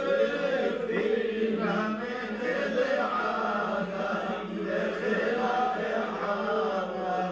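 Men's voices chanting together in long held notes: the sung group refrain of Lebanese zajal, taken up after a poet's verse.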